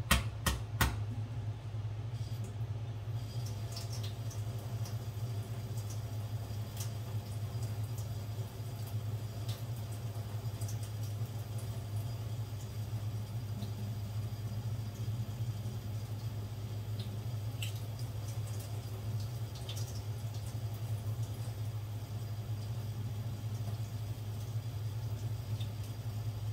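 Steady low hum with faint, scattered small clicks and taps as eggs are peeled at the kitchen sink.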